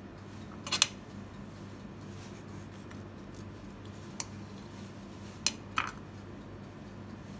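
A knife clicking against a plate as cake is cut and handled: a sharp click about a second in, another after four seconds, and two more close together near six seconds, over a steady low hum.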